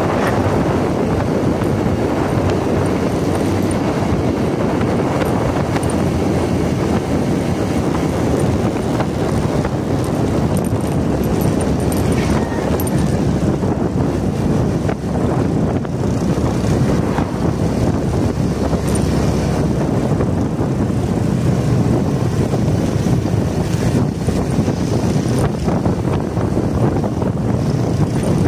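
Steady wind rush buffeting a phone's microphone on a moving motorcycle, mixed with the motorcycle's running engine and road noise.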